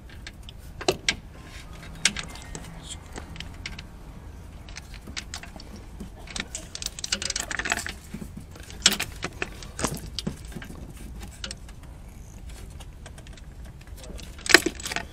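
Scattered metallic clinks and clicks of a socket wrench and extension being worked on a tight spark plug deep beside a Subaru EJ20 boxer engine. The plug has not yet broken loose, with a denser run of clicking about seven seconds in and a sharp knock near the end.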